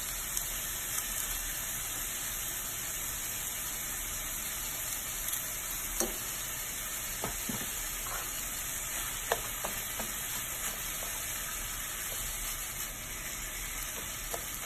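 Ground beef with chopped onion and garlic sizzling steadily in a frying pan, with a few light clicks and taps of a slotted spatula against the pan.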